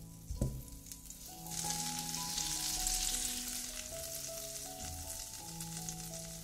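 A single knock about half a second in, then food starts sizzling in a hot frying pan and keeps on steadily: chopped onion frying in butter. Soft background music plays underneath.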